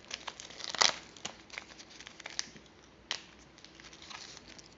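A syringe's plastic packaging being crinkled and torn open by hand: a run of crackles with a sharp snap just under a second in and another at about three seconds.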